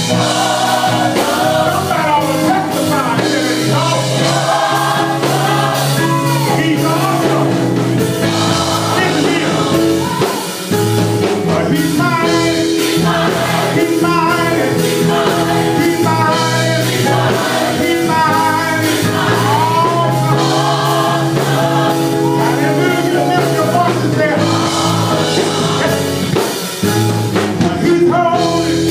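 Gospel choir singing with a male lead vocalist out front, over a steady low accompaniment, loud and continuous.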